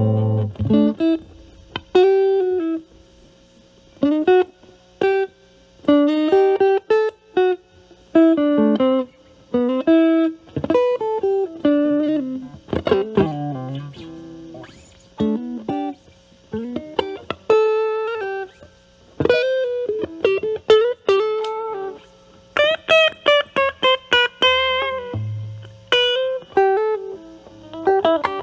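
Stratocaster with single-coil Alnico pickups played through an Ibanez Super Metal mini (SM-9) distortion pedal, drive at 9, into a Marshall Valvestate amp's clean channel. It plays single-note lead licks with string bends and quick runs, with short pauses between phrases.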